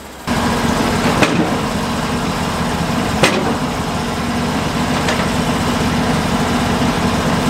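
Engine of a Norwood LumberPro HD36 portable band sawmill idling steadily, with a few sharp knocks of a squared pine timber being shifted on the mill bed.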